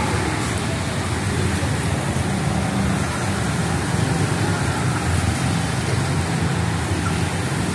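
Heavy rain falling steadily, a continuous hiss, with the low rumble of vehicles passing on a wet road.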